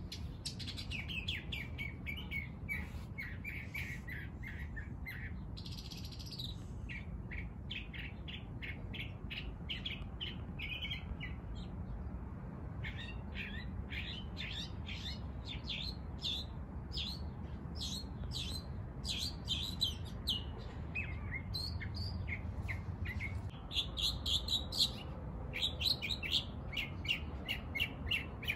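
Finches chirping in quick runs of short high notes, with brief pauses between runs. A steady low rumble sits underneath.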